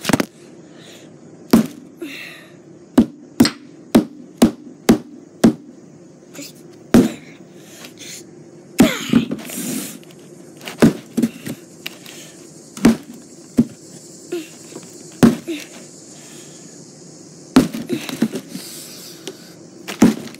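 Hammer blows on a cardboard box: about twenty hard, sharp hits at uneven intervals, including a run of six at about two a second a few seconds in, and a longer scuffling crunch around the middle.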